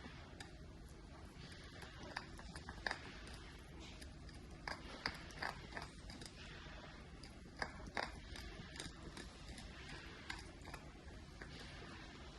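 Mini Bichon puppy gnawing a hard deer antler chew: irregular sharp clicks and scrapes of teeth on antler, the loudest about 3, 5 and 8 seconds in.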